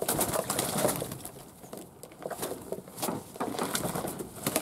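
Fantail pigeons cooing, with wings flapping and water splashing as they bathe in a bowl of water. It is loudest about the first second and picks up again near the end.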